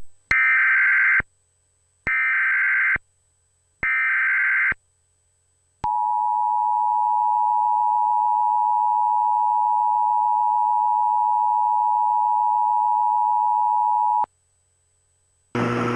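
Emergency Alert System tones: three short bursts of screechy SAME header data, each about a second long, then the two-tone EAS attention signal held steady for about eight seconds and cut off abruptly. A voice begins near the end.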